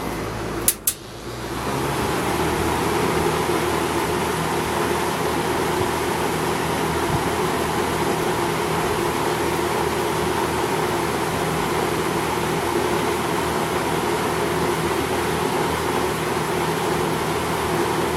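Mid-1970s Westinghouse AW12-1 20-inch two-speed box fan: two clicks of its speed switch about a second in, then the motor spins up and the fan runs steadily with a constant air rush and motor hum.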